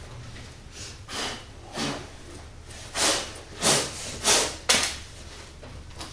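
A fabric laptop bag being unzipped and a laptop slid out of it: six short rustling swishes, louder in the second half, over a low room hum.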